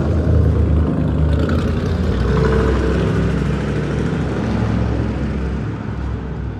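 A motor vehicle running close by, a low engine and road rumble that swells at the start and slowly fades toward the end.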